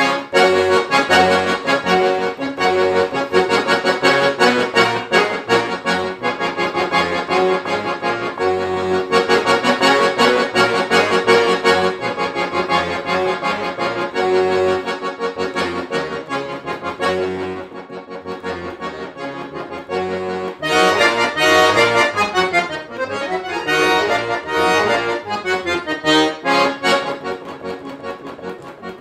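Solo piano accordion playing a fast, dense passage of rapid notes. It drops quieter for a few seconds past the middle, then comes back loud with quick runs sweeping up and down.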